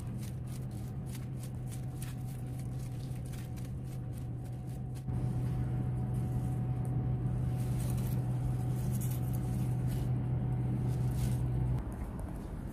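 A steady low mechanical hum, with quick scratchy strokes of a small hand tool in dry soil over the first few seconds. The hum gets louder about five seconds in and drops back suddenly near the end.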